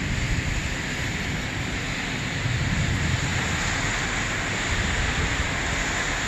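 Steady wind and heavy rain of a thunderstorm, with wind buffeting the microphone in a low, uneven rumble.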